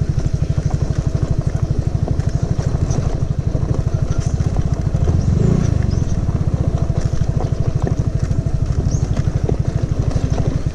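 Suzuki Skydrive Sport scooter's single-cylinder four-stroke engine running steadily while being ridden, with a rapid, even pulsing. It swells briefly about five seconds in.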